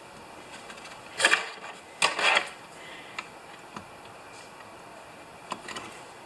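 Two short, loud noises about a second apart, followed by a few light clicks as pliers work the fuel lines onto the two-stroke trimmer's carburetor.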